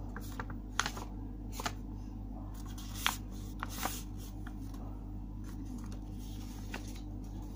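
A square sheet of origami paper rustling and crinkling as it is handled, with a few sharp crackles, over a steady low hum.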